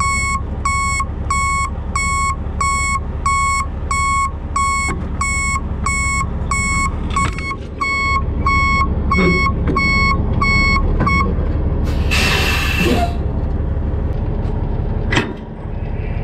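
Dump truck's backup alarm beeping about one and a half times a second over its running diesel engine as it reverses, stopping about 11 seconds in. A short hiss of air follows, then a sharp click near the end.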